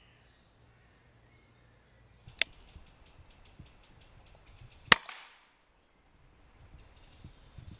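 An air rifle fires a single shot about five seconds in: a sharp crack with a short fading tail. The shot strikes a grey squirrel. A quieter sharp click comes about two and a half seconds earlier.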